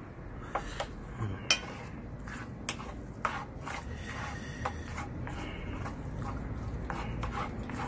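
A spoon stirring and mashing rice, ramen and burst dumplings in a metal pot, with scattered, irregular soft taps and scrapes against the pot.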